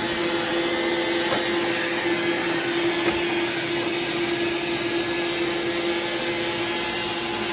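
iRobot Roomba robot vacuum running: a steady whir with a steady low hum.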